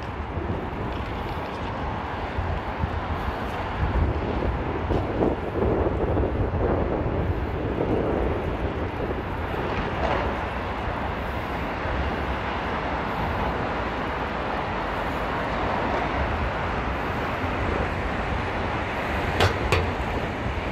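Wind buffeting the microphone over a steady outdoor hum of city traffic, with two sharp clicks near the end.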